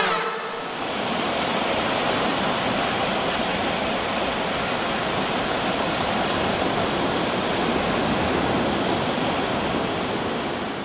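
Steady wash of ocean surf, an even rushing noise that eases slightly near the end.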